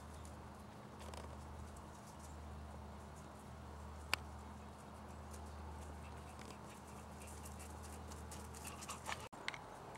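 Faint patter of a dog's paws trotting on frosty grass over a steady low hum, with one sharp click about four seconds in.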